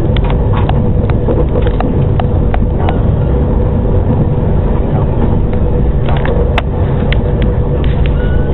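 Steady rumble of a moving train heard from inside the carriage. A run of light rhythmic clicks, about three a second, fills the first three seconds, and a few sharper clicks come near the end.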